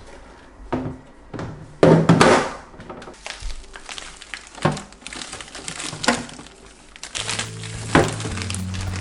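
Food packages and containers being handled in a freezer: plastic crinkling with irregular knocks, the loudest about two seconds in, over background music.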